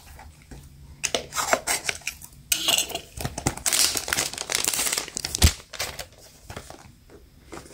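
Unwrapping a small plastic blind-box cube: crinkling and tearing of its printed wrapper and sticker seal, mixed with hard plastic clicks and knocks as the cube is handled. The busiest crackling comes in the middle, with one sharp click about five and a half seconds in.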